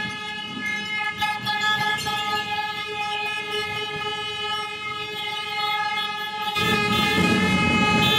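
A horn blown in one long, steady blast, holding a single pitch. Louder crowd noise comes in behind it about two-thirds of the way through.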